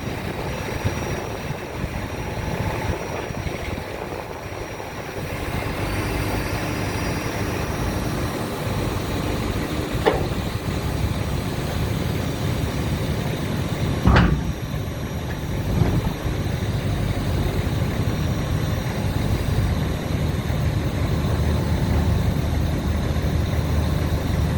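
John Deere 220D W wheeled excavator's diesel engine running steadily while the machine is worked, getting louder about five seconds in. Two sharp knocks stand out, one about ten seconds in and a louder one about fourteen seconds in.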